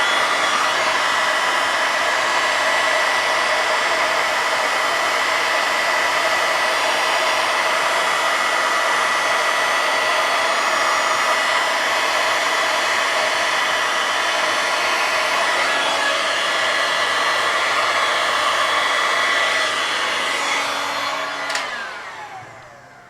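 Electric heat gun blowing steadily with a high whine, melting the solder ring inside a solder-seal wire connector; about 21 seconds in it is switched off and the fan winds down with a falling whine.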